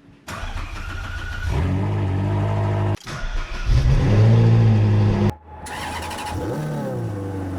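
Ferrari 458 Spider's 4.5-litre V8 revving in three short clips joined by abrupt cuts, the pitch climbing and settling in each; the loudest rev is in the middle clip.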